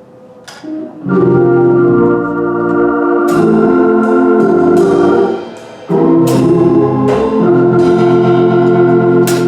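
Organ, Hammond-style in sound, playing sustained full chords that come in about a second in, pause briefly just past the halfway point, then resume, with a few short percussive hits over them.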